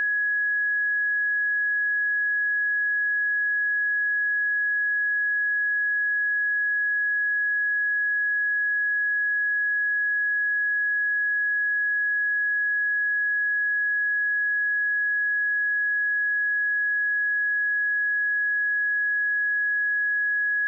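A steady pure sine-wave test tone at 1675 Hz, held at one unchanging pitch and level, used to check speakers or headphones.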